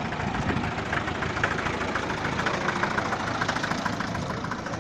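Engine of the vehicle carrying the camera running as it drives slowly, with a fast rattling pulse over a steady road and engine noise.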